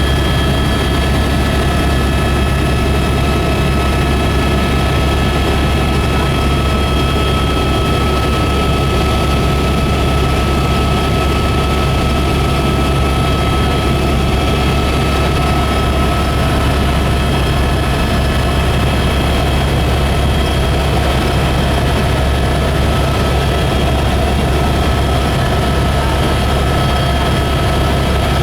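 Helicopter in flight heard from inside the cabin: a loud, steady engine and rotor drone with several constant high whining tones over it.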